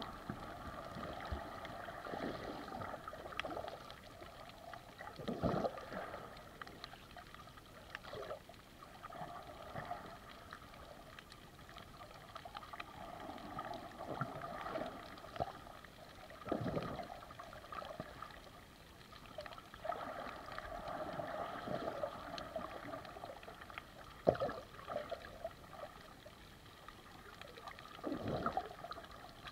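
Muffled underwater water noise picked up by a camera held underwater, with a louder swish about every eleven seconds.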